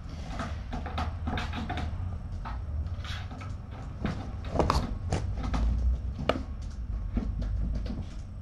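Irregular knocks, thumps and clicks from kittens romping on a cat tree and furniture and from laptop typing, over a steady low hum. The loudest knocks come about four and a half and six seconds in.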